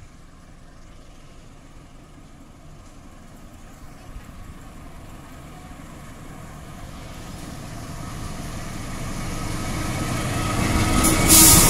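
Diesel-electric locomotive hauling a passenger train, its engine running as it approaches and growing steadily louder. Near the end there is a sudden loud rush of noise as it reaches the microphone.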